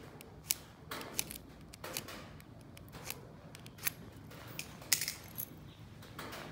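An Orient wristwatch being handled: a scattering of sharp clicks and light taps, the loudest about five seconds in.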